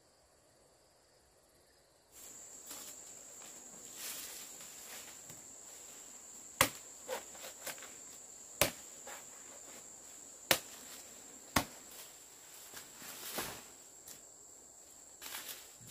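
Steady high-pitched insect drone, of crickets or cicadas, coming in after about two seconds of near silence. Sharp knocks or chops sound every second or two from about six seconds in, four of them standing out.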